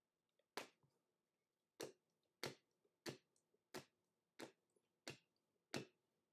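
Trading cards being flipped through one at a time, each giving a sharp snap, eight snaps at an even pace of about one every two-thirds of a second.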